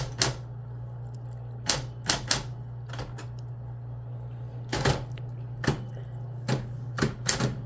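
Typewriter keys struck one at a time at an uneven, slow pace, some strokes in quick pairs, each a sharp clack, over a steady low hum.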